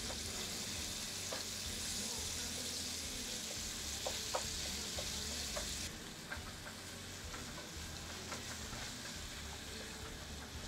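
Ground chicken sizzling in butter in a frying pan while a spatula breaks it apart, with a few light spatula taps and scrapes. The sizzle drops suddenly about six seconds in.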